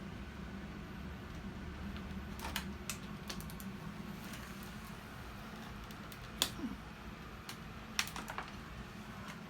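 Scattered light clicks and knocks, the sharpest about six and a half seconds in and a quick cluster around eight seconds, over a steady low hum.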